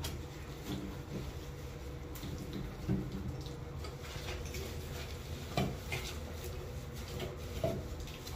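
Scattered light knocks and clinks of hard objects being handled and set down while a bathroom is sprayed and wiped clean, over a steady low hum. The three sharpest knocks come about three, five and a half and seven and a half seconds in.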